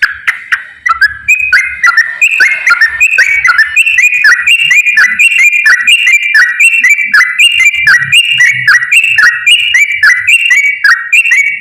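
Yellow-vented bulbul (trucukan) singing the fast 'ropel' song: a loud, unbroken run of quick, bright whistled notes, used as a lure to get other bulbuls to sing. The song stops just before the end.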